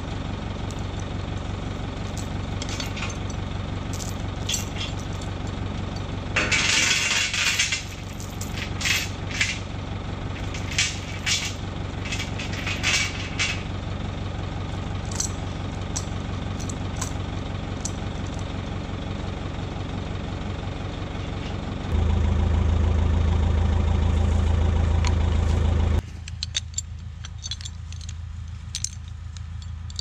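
Caterpillar D4C bulldozer's diesel engine idling steadily, with sharp metal clinks and rattles of a steel chain and cable being rigged. A short loud hiss comes about six seconds in; near the end the engine runs louder for about four seconds, then drops away suddenly, leaving faint engine and sharp chain clinks.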